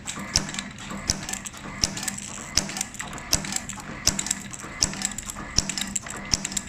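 Automatic strap-cutting machine chopping strap into 30 mm pieces: its blade clacks sharply about once every three-quarters of a second, over a steady motor hum.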